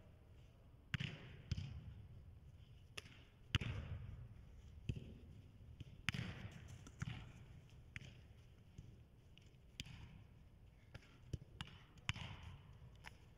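Soccer ball being played back and forth with the feet: about a dozen sharp thuds of boot on ball at irregular intervals, some coming in quick pairs of two touches, each echoing in a large indoor hall.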